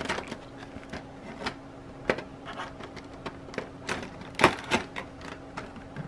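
Clear plastic figure packaging crinkling in the hands as tape is picked and peeled off it: irregular crackles and rustles, with a sharper crackle about four and a half seconds in.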